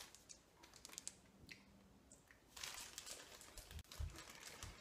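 Faint crinkling of a clear plastic candy bag being handled and opened, with a few soft bumps in the second half.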